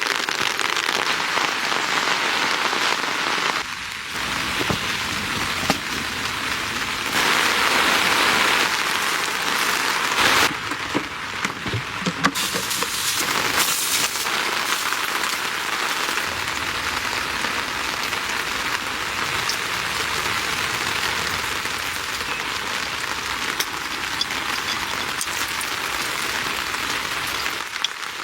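Steady heavy rain falling and pattering on a surface, with a few sharp drips or clicks. Its level shifts abruptly several times in the first half, then stays even.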